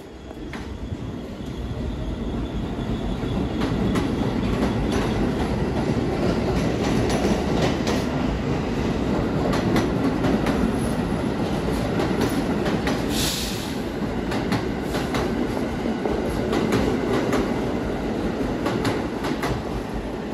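R46 subway train pulling out and passing close by: a steady rumble that builds over the first few seconds, with rapid clicks of wheels over rail joints and a brief high wheel squeal about 13 seconds in.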